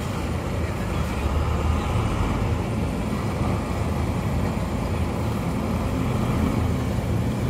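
Intercity coach's diesel engine running as the bus pulls out, a steady low rumble.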